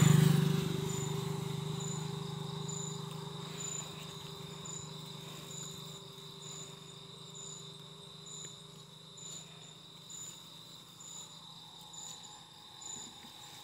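Insects, likely crickets, trilling steadily in the evening, with a short higher-pitched pulse about once a second. At the start a passing vehicle's low hum is loud, then fades away over the first few seconds.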